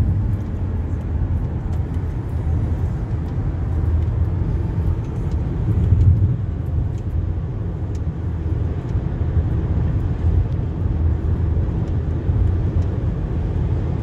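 Steady low rumble of road and engine noise inside the cabin of a car driving at highway speed.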